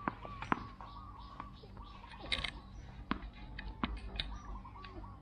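A tennis ball bounced on concrete before a serve, several sharp irregular knocks, the loudest about half a second in. Behind it, a bird repeats short wavering calls.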